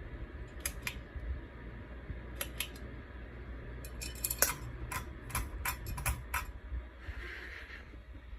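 Sharp metallic clicks: a pair, another pair a couple of seconds later, then a quick run of about a dozen, over a low steady hum. A short soft hiss comes near the end.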